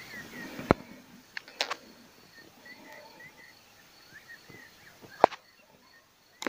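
Outdoor rural ambience with faint bird chirps. A few sharp clicks or snaps break through it: one about three-quarters of a second in, two close together near a second and a half, and the loudest about five seconds in.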